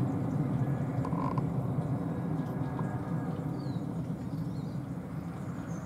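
Twin-engine business jet climbing away after takeoff: a low jet rumble that slowly fades as the aircraft recedes.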